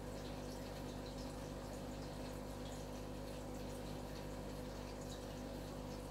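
Aquarium water trickling and dripping steadily with small splashes, over a steady low hum from the tank's running equipment.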